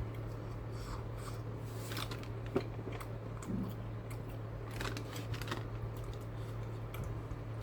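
Close-miked chewing of a soft rice and bean burrito: scattered wet mouth clicks and smacks over a steady low hum.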